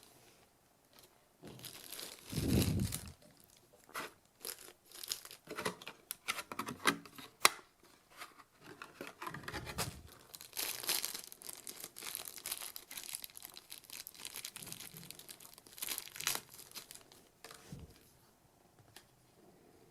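Packaging being handled and opened by hand: irregular bursts of crinkling and tearing, with a dull thump a couple of seconds in and a sharp click about seven seconds in, the loudest sound.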